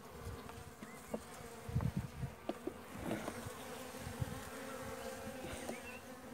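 Honeybees humming steadily around an open hive. A few short knocks and clicks of the wooden frames being handled come about two to three seconds in.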